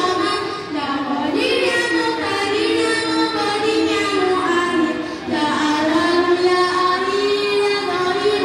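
A high female voice singing a slow melody with long held notes.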